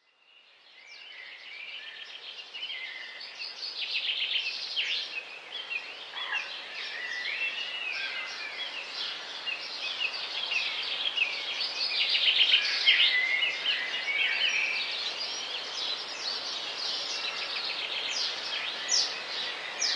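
Many small birds chirping over a steady hiss of background noise, fading in from silence at the start: a morning bird chorus.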